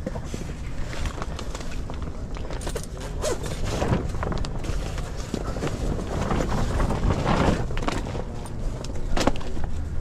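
Handling noise: cloth rubbing and brushing against the microphone, with irregular small knocks and clicks and a low rumble throughout.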